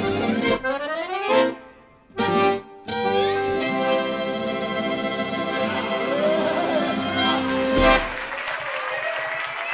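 Instrumental fiddle music, cutting out briefly about two seconds in, resuming and ending on a final note about eight seconds in, followed by applause from a live audience.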